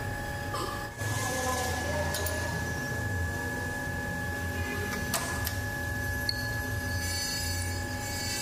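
Metal lathe running steadily, a constant whine over a low hum, with a few sharp clicks.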